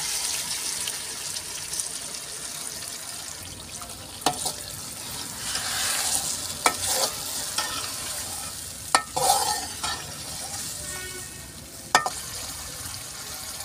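Yogurt-marinated chicken sizzling in hot oil in a cooking pot as it is stirred, being fried (bhuna) in its own yogurt and spice marinade. A spoon clinks sharply against the pot about four times.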